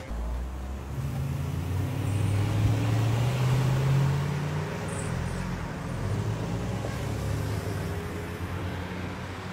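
A car engine running as an SUV drives past through an intersection, with low street traffic noise. It grows louder over the first few seconds, peaks around three to four seconds in, then eases off.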